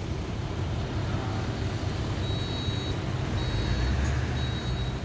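A truck engine idling with a steady low rumble. From about two seconds in, a high-pitched beep sounds on and off repeatedly over it.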